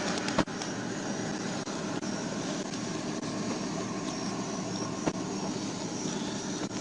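Steady roadside traffic and engine noise, with a sharp click about half a second in and another about five seconds in.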